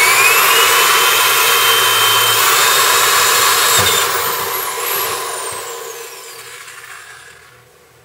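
Electric drill boring a hole up through a car's sheet-metal floor pan. Its motor whine climbs as it gets up to speed, holds steady, and then trails off, falling in pitch as the drill winds down over the last few seconds.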